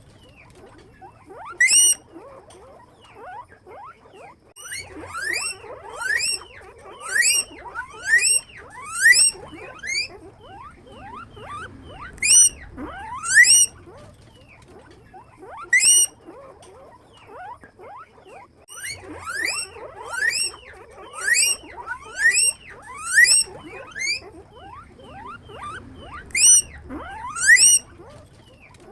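Guinea pig squeaking (wheeking): loud, high calls, each rising sharply in pitch, come in runs of several at about one a second, separated by short pauses. Fainter squeaks fill the gaps.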